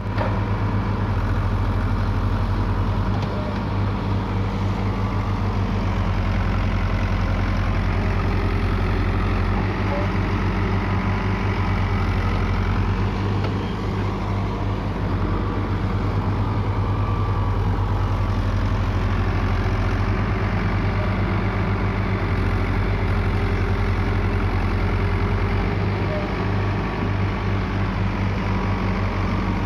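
Diesel engine of an earthmoving machine running steadily at a low, even speed, with a continuous low throb.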